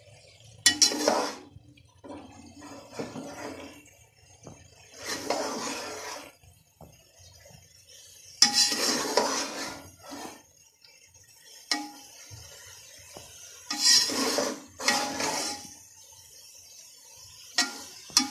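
A metal spoon scraping and clanking against the inside of a large metal pot as shredded vegetables are stirred, in about seven short bursts spaced a few seconds apart.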